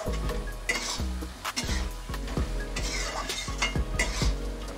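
A metal spatula scraping and knocking in a metal kadai in repeated irregular strokes, stirring potato and pointed gourd pieces through a thick spice paste that sizzles in the oil. The vegetables are being sautéed in the masala before water goes in.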